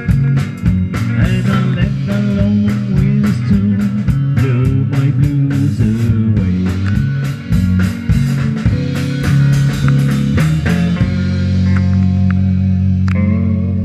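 Live rock band of electric guitars and drum kit playing with a steady beat. About eleven seconds in the drums stop and sustained guitar notes ring on.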